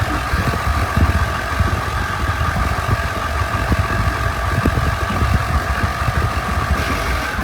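Lawnmower engine running steadily, a low rumble with an even hum above it.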